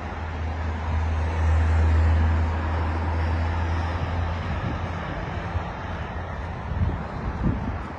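A motor vehicle passing on the street: a low engine rumble swells to its loudest about two seconds in, then fades, over steady traffic noise.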